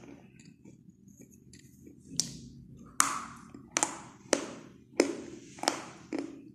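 Crunching chalk sticks: about seven sharp, crisp cracks, each with a short gritty tail, coming roughly every two-thirds of a second from about two seconds in.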